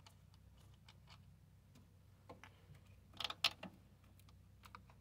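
Faint scattered small metallic clicks and ticks of tools and hardware being handled while disconnecting a positive battery cable, with a short cluster of sharper clicks a little past three seconds in.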